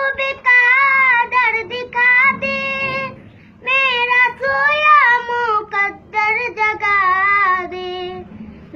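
A boy singing a naat solo, drawing out long, ornamented notes in two sustained phrases, with a brief breath a little after three seconds in.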